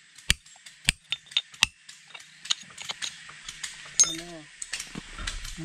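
Three sharp knocks about two-thirds of a second apart in the first two seconds, then scattered lighter clicks, over a steady high hiss. A short vocal sound comes about four seconds in.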